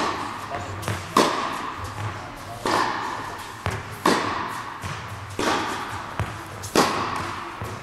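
Tennis ball struck by rackets in a rally: six sharp hits about a second and a half apart, with fainter ball bounces between them, each echoing in a large indoor tennis hall.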